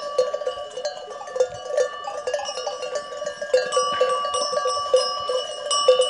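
Livestock bells on a grazing flock of sheep and goats ringing and clanking irregularly, several bells overlapping.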